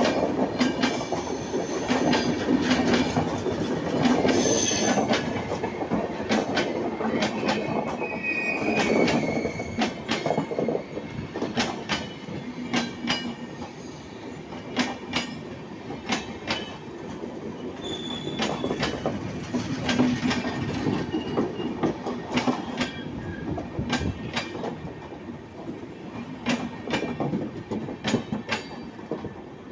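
Indian Railways LHB passenger coaches rolling past close by. The wheels clack over rail joints in frequent, uneven clicks, with short high-pitched wheel squeals now and then, and the sound eases off somewhat in the second half.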